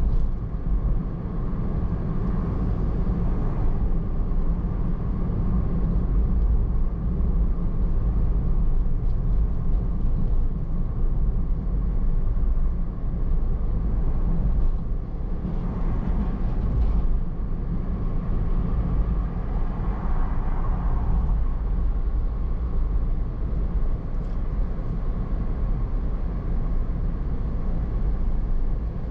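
A car driving along a road: a steady low rumble of engine and tyre noise, swelling slightly in the middle.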